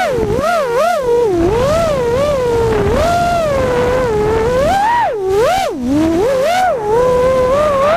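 Small FPV quadcopter's electric motors whining, heard from the onboard camera, the pitch swinging up and down quickly with throttle changes and dropping sharply once near the middle.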